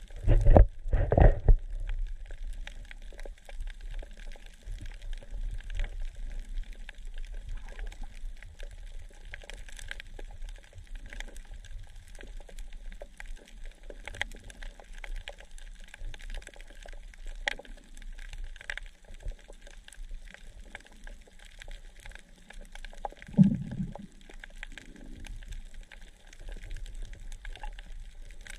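Underwater sound: a steady hiss and crackle of small clicks, with two loud low gurgling bursts right at the start. A little before the end comes one short low moaning call with overtones, typical of a humpback whale singing.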